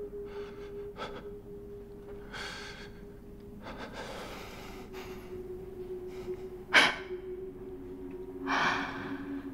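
A person's heavy breaths and gasps, several short ones and one sharp, loud gasp about two-thirds of the way through. Underneath is a sustained low note of the film score that steps down in pitch about halfway.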